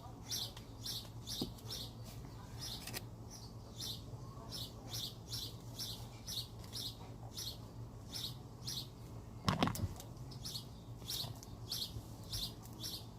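A small bird chirping over and over, short high chirps about two to three a second, with one sharp knock a little after nine seconds in.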